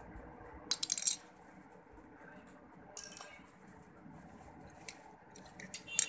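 Handling noise from pencil and paper: a few short, sharp clicks and clinks, the loudest cluster about a second in and another just before the end, over faint room noise.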